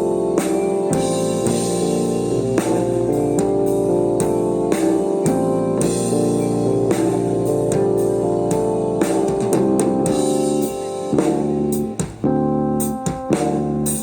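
Psychedelic rock band playing live in an instrumental passage: sustained keyboard chords over a drum kit, broken by a few short stops near the end.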